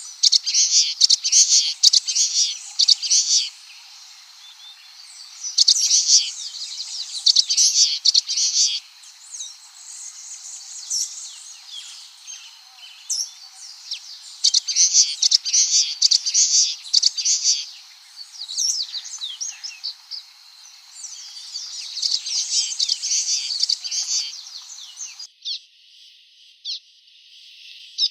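Common waxbill singing: phrases of high, rapid chirps, four loud bursts a few seconds apart with fainter chirping between. Near the end the sound turns thinner.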